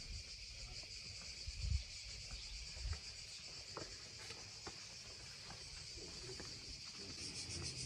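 Steady insect chirring, faint at first and growing louder near the end, with a couple of soft low thumps about two and three seconds in.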